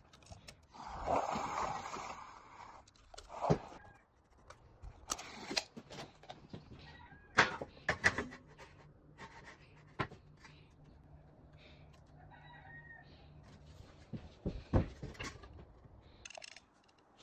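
Handling noise from a drywall sheet and a metal framing profile being set in place: a scraping rustle about a second in, then scattered knocks and clicks as the profile is positioned along the marked line.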